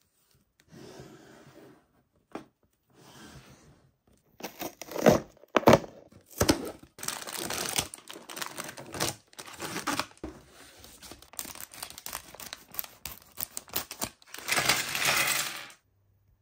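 Toy packaging being torn open and crinkled. A few soft rustles come first, then two sharp loud snaps about five seconds in, then a long run of tearing and crinkling with quick clicks.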